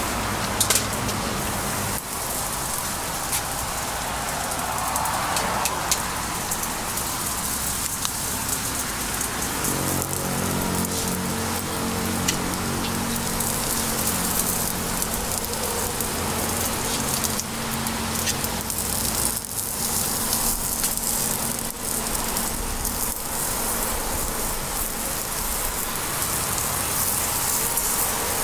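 Steady crackling hiss of cast-iron bungeoppang (fish-shaped bun) molds heating over a flame, with scattered sharp clicks. Music comes in about ten seconds in.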